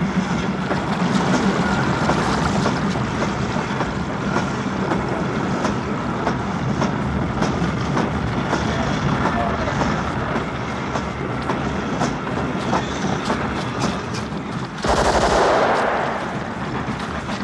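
A train rumbling steadily, with scattered gunshots cracking over it and a louder burst of noise about fifteen seconds in.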